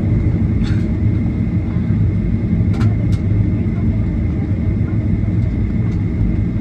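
Steady cabin rumble of a jet airliner taxiing, with a thin steady whine held throughout. A few faint clicks come in the first half.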